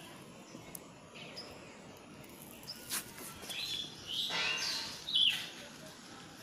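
Birds chirping: a few short, high chirps and one longer call in the second half, over faint outdoor background noise.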